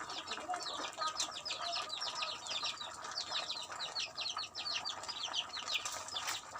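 A busy chorus of small birds chirping: many short, high, falling chirps in quick succession throughout.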